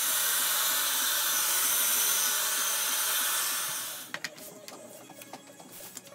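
Clear plastic sheet rustling and crinkling as it is handled and pulled off a leather hide, an even hiss that stops about four seconds in; small clicks and taps follow.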